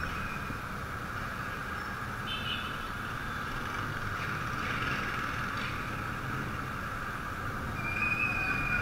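Steady motorcycle riding noise picked up by a bike-mounted action camera: a continuous rush of engine, road and wind noise with no change in pace. A brief thin high tone sounds near the end.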